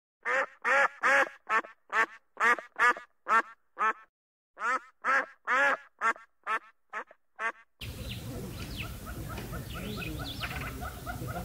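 Ruddy shelduck calling: a run of about twenty short nasal honks, roughly three a second, in two bouts with a half-second gap about four seconds in. About two-thirds of the way through the calls stop and the sound switches suddenly to outdoor ambience with faint small-bird chirps and a fast run of ticks.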